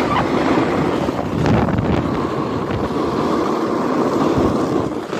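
Wind buffeting the microphone over the steady hiss and scrape of skis sliding on hard, icy packed snow during a downhill run.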